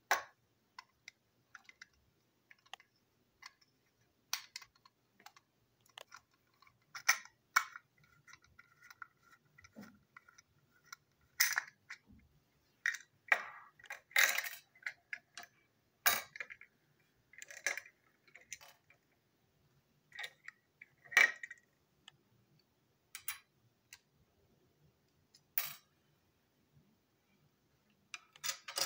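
Scattered sharp clicks and clacks of hard plastic toy train parts being handled and taken apart, some pieces knocking down onto the desk. A faint steady high tone runs for a few seconds in the first half.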